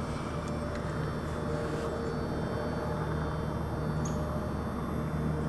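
A steady, distant low rumble with a faint hum in it.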